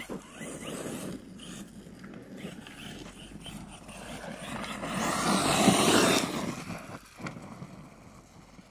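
Arma Kraton 6S brushless RC monster truck driving hard over loose dirt and gravel, tyres scrabbling and throwing grit. The noise swells to its loudest about five to six seconds in, then fades.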